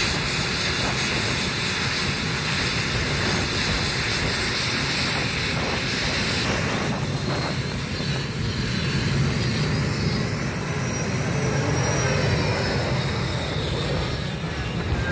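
Modified pulling tractor under full power, dragging the weight-transfer sled: a loud, steady engine noise with a high whine over it that steps up in pitch about six seconds in.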